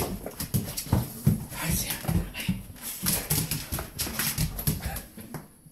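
Excited dog jumping up on a person in greeting: a quick, irregular run of short knocks and scrabbles from its paws and claws, mixed with whining.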